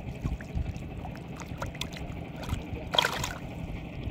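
Shallow water sloshing and trickling over a fishing net, with small scattered splashes and one sharper splash about three seconds in.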